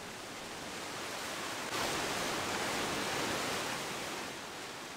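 Wind rushing, a steady hiss that swells suddenly a little under two seconds in and eases off near the end.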